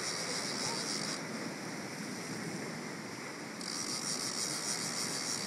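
Ocean swell and wash breaking against rocks, with wind on the microphone. A higher hiss sits over it for about the first second and comes back about three and a half seconds in.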